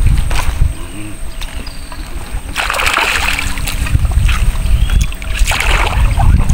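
Water splashing at the surface of the river twice, about three seconds apart, over a steady low rumble.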